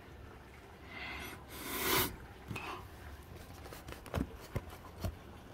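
Steady rain heard from indoors through a closed window. A rushing swell builds about a second in and cuts off near two seconds, then a few sharp taps come near the end.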